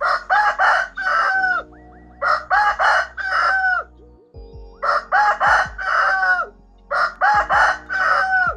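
A rooster crowing four times, each a cock-a-doodle-doo that ends in a long drawn-out note, with gaps of about a second between crows. Soft background music runs underneath.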